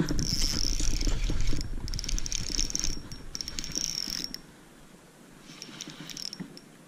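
Spinning reel cranked fast to bring in a hooked crappie: its gears whir and tick in three quick spurts over the first four seconds or so, then a few quieter turns near the end. A low rumble runs under the first couple of seconds.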